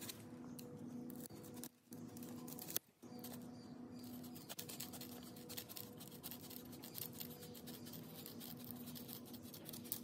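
Black foam cushioning strip being handled and cut by hand: faint scratchy rustles and small clicks, thicker in the second half, over a steady low hum.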